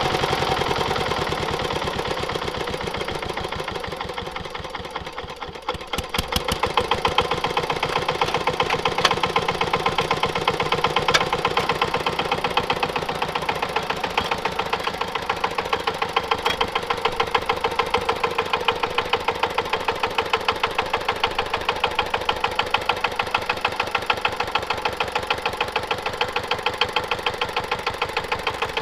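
Yanmar TC14 walking tractor's single-cylinder diesel engine running with a regular knocking beat as it works the soil forming a garden bed. It is softer for the first few seconds, then louder and more sharply pulsed from about six seconds in.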